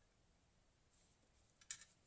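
Near silence, then a faint rustle about a second in and a single sharp click near the end, like small hard parts being handled.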